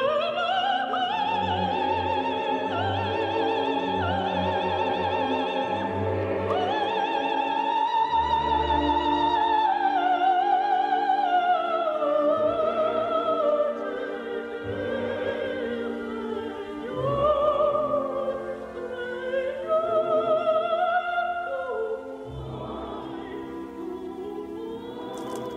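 Operatic soprano singing a slow bel canto melody with a wide vibrato, holding long notes that rise and fall, over soft orchestral accompaniment; it grows quieter near the end.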